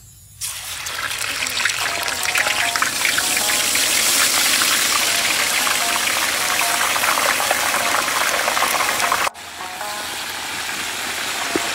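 Deep-frying whole bunches of green bananas in a wok of hot oil: the oil breaks into a loud, dense crackling sizzle about half a second in as the bananas go under. It cuts out for an instant about nine seconds in, then the sizzling carries on.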